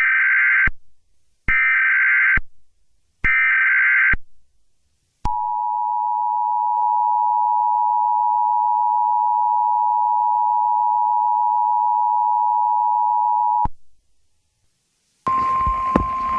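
Emergency Alert System tones: three short bursts of screeching digital header data, then the two-tone attention signal held steady for about eight seconds before cutting off. Near the end a hissy recording of a weather-radio alert tone begins.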